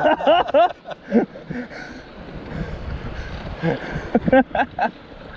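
Wind and choppy waves buffeting a small canoe, a steady rushing noise, broken by a few short shouted exclamations from the paddlers.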